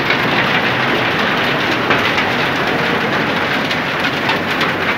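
Heavy hail falling: a dense, steady clatter of many small hailstones striking the ground.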